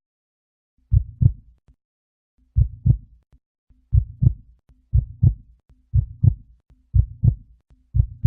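Heartbeat sound effect: pairs of low lub-dub thumps, the first few spaced well apart, then quickening into a steady beat of about one a second.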